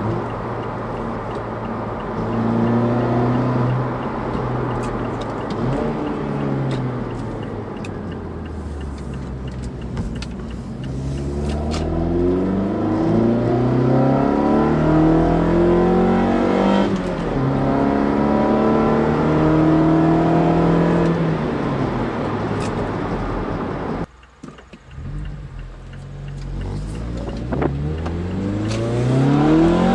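Mazda 3's 2.5-litre four-cylinder engine, with a K&N short ram intake and Corksport axle-back exhaust, accelerating through the gears. Its pitch climbs, drops back at each upshift, and climbs again. There is a brief break a little over halfway through the latter part, then another pull begins.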